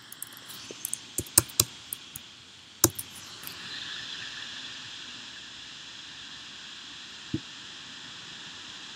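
Computer keyboard keystrokes: a quick, uneven run of about a dozen clicks in the first three seconds as a word is typed. Then a steady hiss, with a single click a little before the end.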